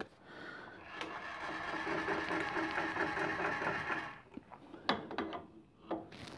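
Drill chuck being turned in the hands, giving a fast, even mechanical whirr as its jaws wind. This stops about four seconds in, and a few light metal knocks follow as the chuck is offered up to the milling machine spindle.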